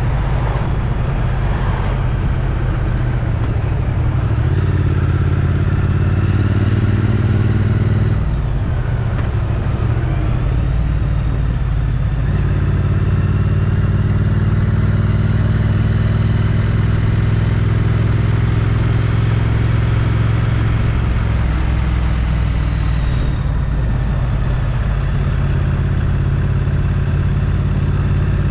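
Triumph Street Twin's 900 cc parallel-twin engine through its stock exhaust, riding along: it pulls up through the gears with breaks for shifts about eight and twelve seconds in, then climbs slowly and settles into a steady cruise. Wind rushes over the helmet-mounted microphone.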